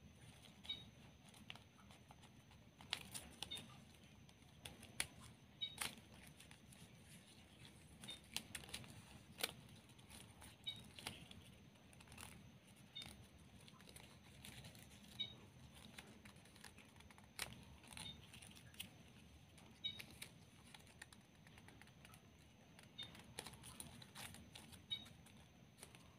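Faint, irregular clicks and crinkles of plastic satin ribbon being bent, tucked and pressed into place by fingers, over a low steady background hum.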